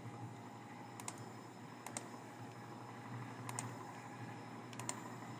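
Computer mouse clicking: about half a dozen sharp single clicks, irregularly spaced, over a faint low hum.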